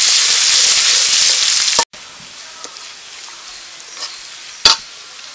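Chopped onions and bay leaves sizzling loudly in hot oil in a metal wok as a steel spatula stirs them. The sizzle cuts off abruptly about two seconds in, leaving much quieter frying with a few faint scrapes and one sharp metal knock of the spatula on the pan near the end.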